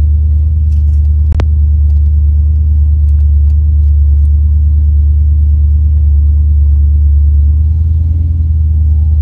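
Loud, steady low rumble of a running motor vehicle, with one sharp click about a second and a half in.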